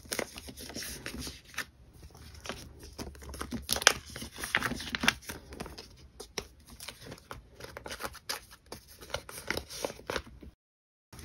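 Photocards being handled and slid into clear plastic binder pockets: irregular crinkling and rustling of the plastic page with light clicks and taps. It breaks off abruptly into silence shortly before the end.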